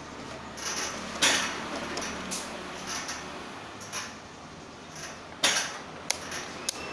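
Small hard objects being handled, with light clatter and a few sharp clinks, the loudest a little over a second in and at about five and a half seconds, and two quick ticks near the end.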